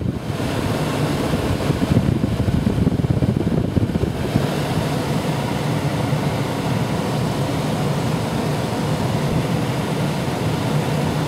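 2004 Ford Taurus V6 engine running steadily at idle with the air conditioning switched on, and a steady grinding noise that the owner suspects may come from the AC compressor.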